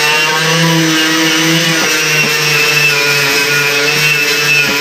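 Electric angle grinder running with its abrasive wheel pressed against the truck door's rusty sheet steel. The motor whine holds steady, its pitch dipping and recovering slightly as the wheel bears on the metal.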